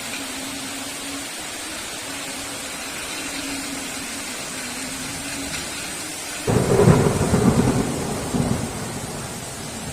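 Heavy rain hissing steadily. About six and a half seconds in, a sudden loud thunderclap breaks in and rumbles for a couple of seconds before fading back under the rain.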